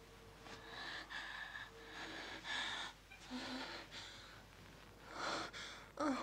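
A man and a woman kissing, with a run of quick, heavy breaths and gasps through mouth and nose, about eight in all, ending in a short moan that rises in pitch.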